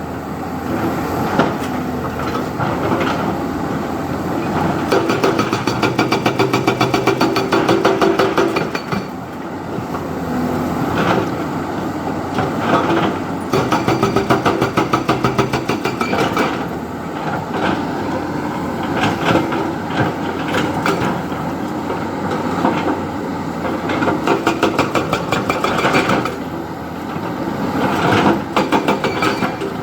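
JCB 3DX backhoe loader's diesel engine running as it works, with repeated spells of fast, even clatter.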